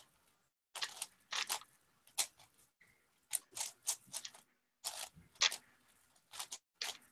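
Plastic speedcube being turned by hand: quick clusters of clicks and clacks as its layers are twisted, with short pauses between the clusters.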